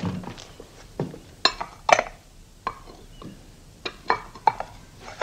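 Plates and cutlery clinking, a string of separate knocks with short ringing, as used dishes are gathered and stacked on a table.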